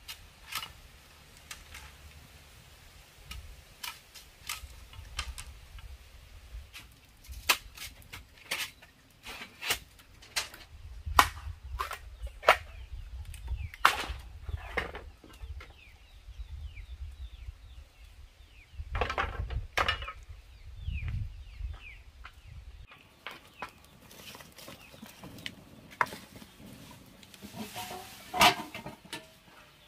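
Chickens clucking amid irregular sharp knocks and cracks, with a pitched clucking call near the end.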